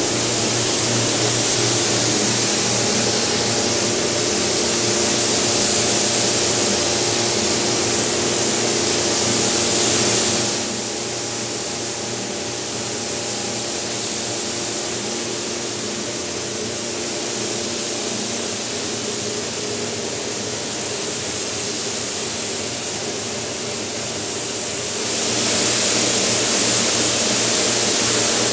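Gravity-feed air spray gun hissing steadily as it lays the colour coat on a fiberglass camper shell, over a steady hum from the paint booth's ventilation. The hiss drops away about ten seconds in and comes back a few seconds before the end.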